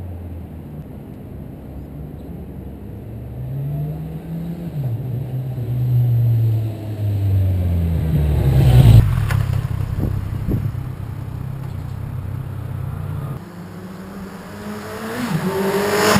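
2014 Kawasaki Z1000's inline-four engine accelerating through the gears, its pitch climbing and dropping at each upshift as the motorcycle approaches and passes close by, loudest about nine seconds in, then fading away. Near the end another run starts, the engine rising again as it comes closer.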